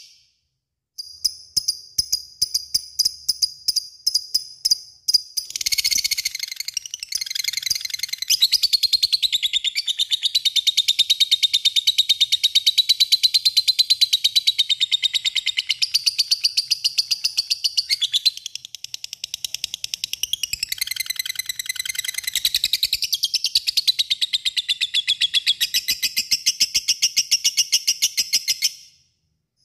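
Lovebird calling: a few seconds of short separate chirps, about four a second, then a long unbroken rapid chattering trill, the 'ngekek panjang' long chatter, lasting over twenty seconds and cutting off abruptly near the end.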